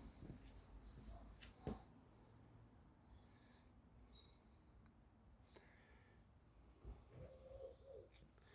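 Faint outdoor birdsong: a short, high, rapid call repeated four times about two and a half seconds apart, with a few softer chirps between. A single soft knock sounds about two seconds in.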